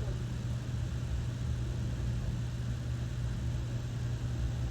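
Strong wind buffeting the microphone: a steady low rumble that surges and fades a little.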